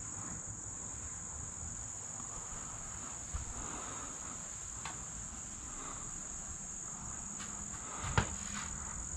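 Steady, high-pitched drone of insects singing, with one sharp knock about eight seconds in.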